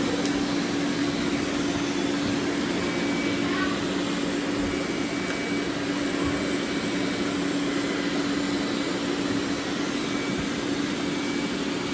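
Several robot vacuums running at once: a steady whirring of suction motors and brushes with a constant low hum.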